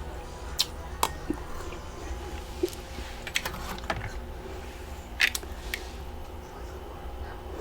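Freezer-frost ice being chewed: a scattered series of crisp cracks and clicks, strongest about a second in, in a cluster around three and a half to four seconds, and again just after five seconds, over a steady low hum.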